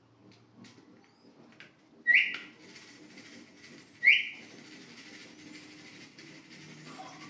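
Two short, loud rising whistles about two seconds apart, with a few faint clicks before them.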